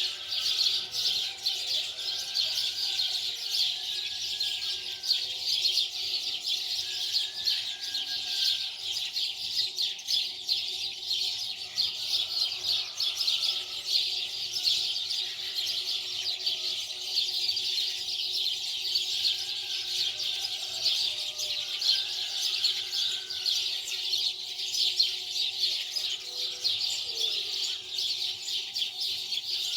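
Many small birds chirping continuously in a dense chorus, with occasional lower, sliding calls among them.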